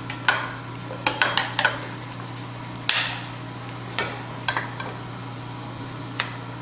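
Metal ladle clinking and scraping against a ceramic bowl and plate as a beef short rib in sauce is served: about a dozen sharp clinks at uneven spacing, bunched in the first two seconds and around four seconds in, over a steady low hum.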